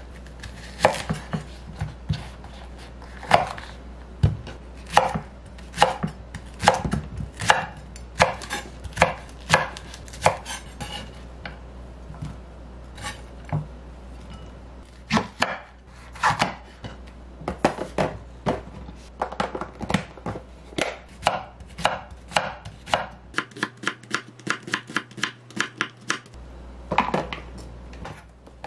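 A chef's knife slicing green onions on a wooden cutting board: a run of sharp knocks of the blade on the board, about two or three a second. The knocks thin out for a few seconds near the middle.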